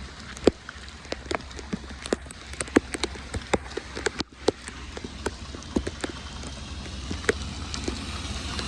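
Rain falling, with irregular drops tapping sharply on a surface close by, a few each second, over a steady low rumble.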